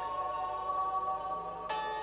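Slow ambient music: sustained bell-like chords ringing on, with a new chord struck near the end.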